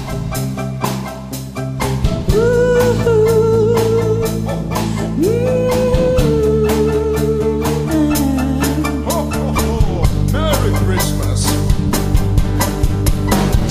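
Instrumental music with a steady drum-kit beat and bass, and long held lead notes over it.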